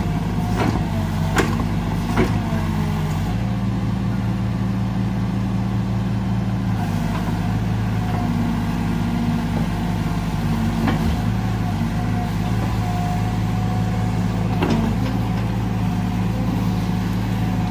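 Hydraulic excavator's diesel engine running steadily, its note shifting a few times as it works. A few sharp knocks come in the first couple of seconds and another near the end.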